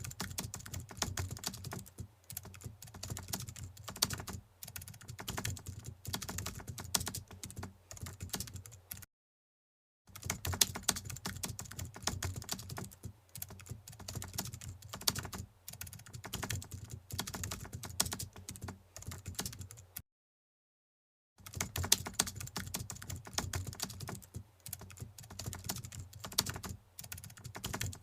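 Rapid computer-keyboard typing clicks, dense and uneven, in stretches of about ten seconds that cut off into dead silence twice and start again: a looped typing sound effect.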